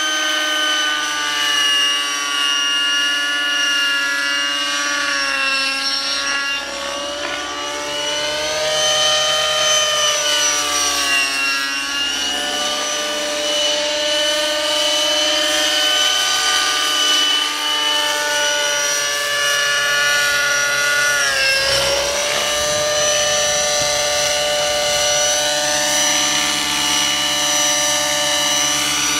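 Radio-controlled model helicopter in flight, its nitro engine and rotors giving a steady high whine. The pitch swoops down and back up several times as it manoeuvres and passes, most sharply about 21 seconds in.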